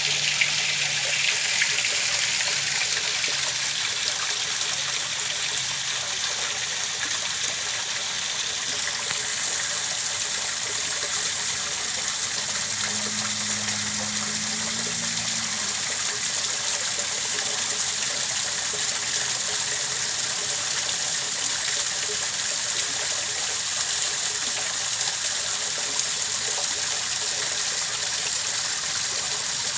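Steady rushing of running water, an even, unbroken hiss strongest in the high range. A faint low hum comes in for a few seconds about halfway through.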